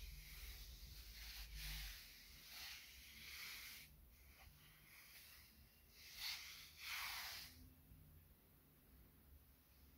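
Faint rustling swishes of a hand brushing over a fabric-covered photo album and the fleece blanket under it, a few short strokes with the two plainest about six and seven seconds in, over near silence.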